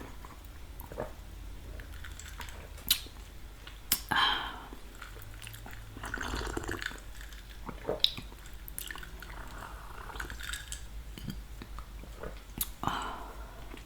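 Close-miked chewing of creamy Alfredo pasta with imitation crab: soft wet mouth clicks and smacks, with a few louder wet smacks along the way.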